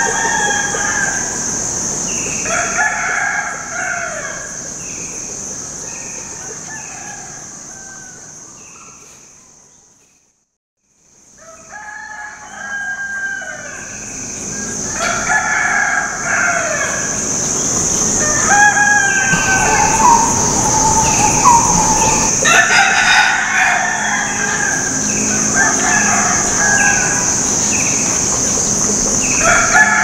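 Chickens clucking and crowing, over a steady high-pitched drone. The sound fades out to silence about ten seconds in and fades back up a second or two later.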